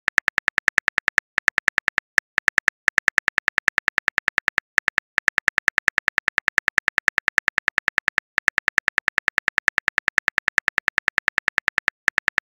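Phone keyboard key clicks, one per letter as a text message is typed out, about seven a second in quick runs with a few brief pauses.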